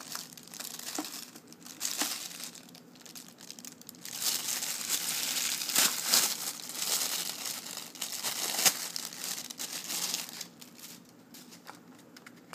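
Clear plastic bag crinkling and crackling as hands work it off a plastic blister pack. It is loudest in the middle, with a few sharp crackles, and thins out near the end.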